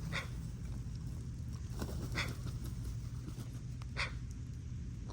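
Crow cawing: three short, harsh caws about two seconds apart, over a steady low background rumble.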